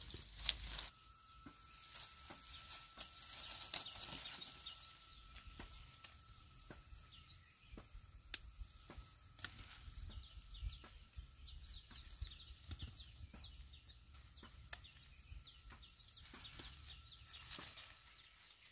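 Outdoor ambience of small birds: many short high chirps, with scattered light clicks and rustles and a thin steady whistle-like tone that starts about a second in and stops just before the end.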